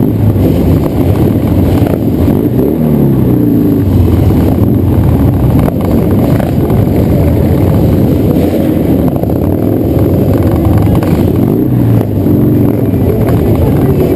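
Cruiser motorcycle engine running on the move, its pitch rising twice as it accelerates, about three seconds in and again near twelve seconds.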